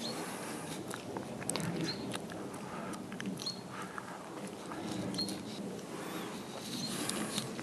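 Footsteps on a wet dirt road and handling noise from a handheld camera, with short high chirps every second or two.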